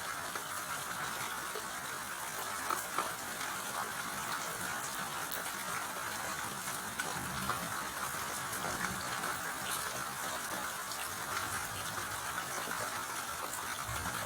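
Steady rainfall, an even hiss with scattered ticks of individual drops.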